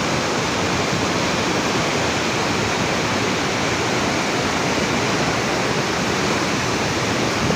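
Waterfall crashing into its plunge pool: a steady, dense rush of falling water.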